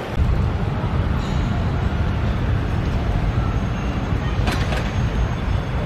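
Airport terminal hall ambience: a steady low rumble with a murmur of people's voices, and a couple of faint clicks about four and a half seconds in.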